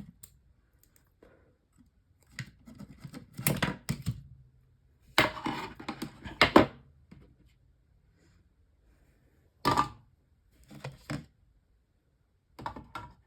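Clicks, knocks and rattles of a small fan heater's internal parts being handled and pulled out during dismantling, in several short bursts with quiet gaps between them.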